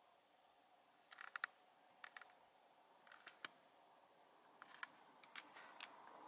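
Faint sharp clicks in about five short clusters over a quiet hiss, each cluster a few quick ticks.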